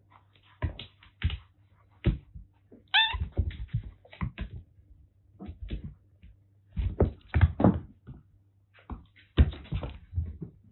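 Kittens wrestling and dashing about, making a run of thumps and scuffles, with one short kitten meow about three seconds in.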